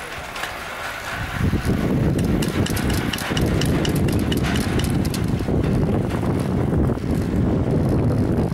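Nascivera chairlift's haul rope and chair grip running through the sheave train on a lift tower. A loud rumble starts about a second and a half in, with a run of quick, even clicks, about four a second, as the grip rolls over the sheaves.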